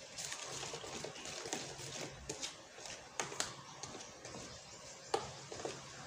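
Hand mixing glutinous rice flour and water into dough in a plastic tub: soft squishing and rustling, with scattered light clicks and taps as the fingers and knuckles hit the plastic.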